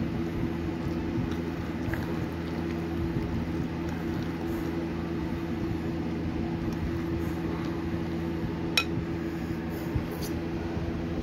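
Thick cream cheese, spinach and artichoke filling being stirred in a glass bowl: soft squishing, with two sharp clinks against the glass about a second apart near the end. A steady low hum runs underneath.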